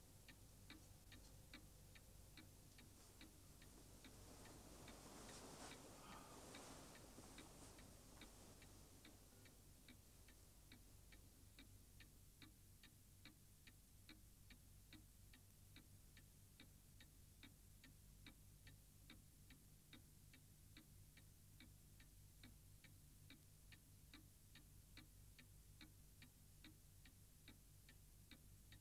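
Faint clock ticking steadily, about two ticks a second, in a near-silent room. A soft rustle swells briefly about five to eight seconds in.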